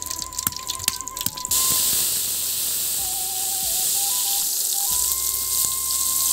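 A few sharp knocks, likely a stone pestle on a stone mortar, then about a second and a half in a loud, steady sizzle of red chili spice paste frying in hot oil in a wok.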